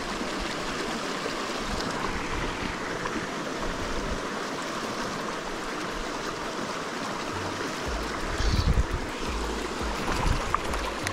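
Mountain stream running over a shallow riffle, a steady rush of water. About eight seconds in, a few low thumps sound over it.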